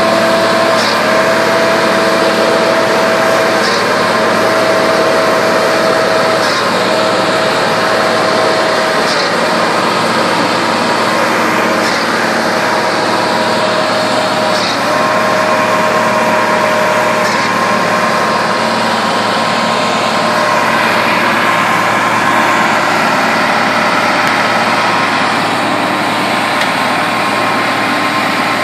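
Diesel engine of a 6170 farm tractor running steadily while it pulls a boat on a tow strap. Over it a tone holds for a couple of seconds, breaks briefly with a faint click and starts again, about every three seconds, fading out after the first two-thirds.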